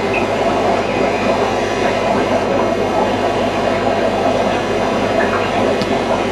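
Steady rushing noise with a faint low hum, typical of aquarium equipment such as a filter or air pump running.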